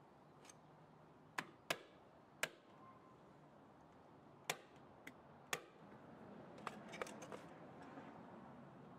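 A scattered series of about ten short, sharp clicks and taps over a faint hiss, several coming in quick succession near the end.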